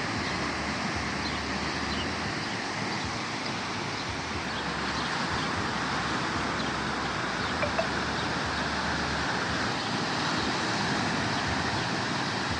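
Sea waves washing in and out as a steady rush, with wind buffeting the microphone in low rumbling gusts.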